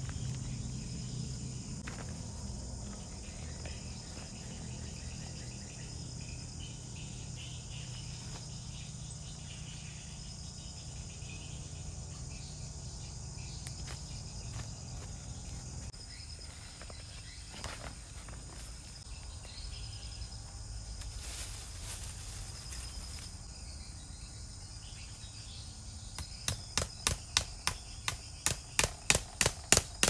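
Forest insects chirring steadily. Near the end, a fast run of sharp knocks, about three or four a second, as a hand tool strikes a wooden shelter post.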